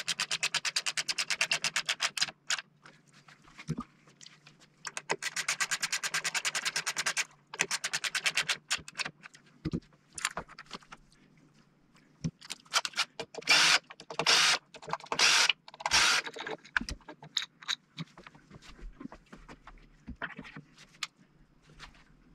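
A cordless electric screwdriver driving screws in several short runs of about half a second each, with knocks and clicks of handling between them. Earlier there are two stretches of rapid, even clicking from a tool working on the frame.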